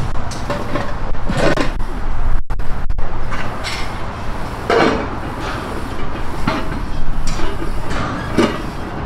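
Heavy barbell squats over a steady outdoor rumble, with a short sound about every two seconds in time with the reps.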